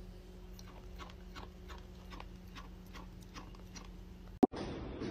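Faint, irregular crunching clicks of an opossum chewing dry pet food, over a steady low hum. A single sharp click comes near the end, after which a louder, different background takes over.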